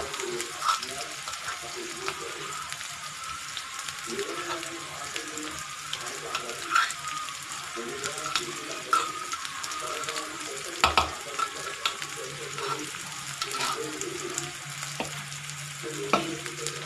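Chopped onion and green chillies frying in hot oil in a steel kadhai, cooking until the onion browns. A steady sizzle runs throughout, with scattered sharp pops and clicks; the loudest comes about eleven seconds in.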